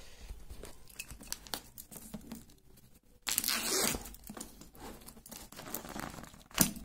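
Clear plastic shrink-wrap being crinkled and torn off a paperback book. Scattered crackles, then a longer tearing rip about three seconds in and a short sharp rip near the end.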